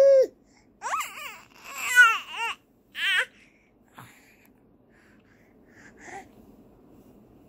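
Four-month-old baby fussing while pushing up on his tummy: a few short, high, wavering squeals and whiny cries in the first three and a half seconds, then mostly quiet apart from a single soft tap about four seconds in.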